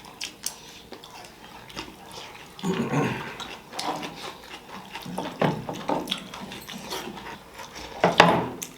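Eating sounds: chewing and handling rice and fish curry by hand, with scattered mouth clicks and a few brief low vocal sounds.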